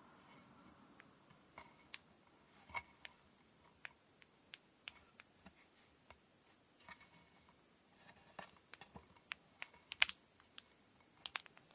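Faint, irregular light clicks and taps of hand work while preparing cotton thread for kumihimo braiding, with a sharper click about ten seconds in.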